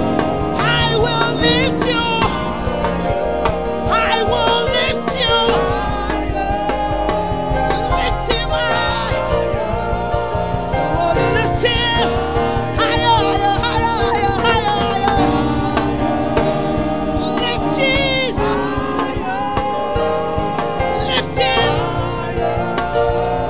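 Live gospel praise and worship music: several singers on microphones, lead and backing voices, with a band playing guitar, bass and drums beneath them.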